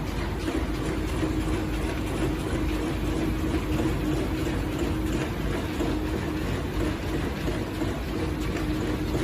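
HDK-400Z paper cutting machine running, a steady motor hum with even mechanical noise and no distinct cutting strokes.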